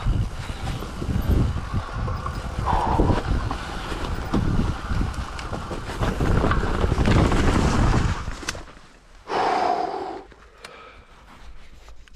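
Commencal Clash mountain bike rattling and rumbling down a steep dirt trail, tyres and frame knocking over roots and ruts, with wind on the microphone. The riding noise stops about eight and a half seconds in, and a brief loud sound follows as the ride ends in a fall.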